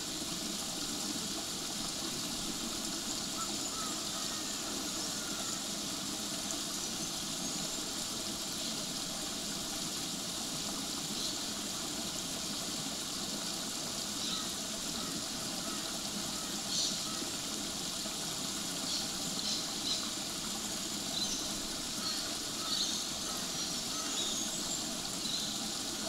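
Babbling creek: a small cascade of water running over rocks into a pool, a steady wash of flowing water, with a few brief higher-pitched sounds over it in the second half.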